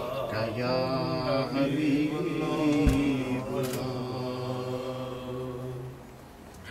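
A man chanting a naat, Urdu devotional verse in praise of the Prophet, unaccompanied, holding long wavering notes. A short knock comes about three seconds in, and the voice fades near the end.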